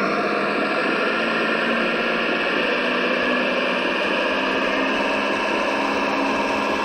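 RC scale military truck (Cross RC UC6 6x6 model) running with a steady mechanical noise from its electric motor and gearbox.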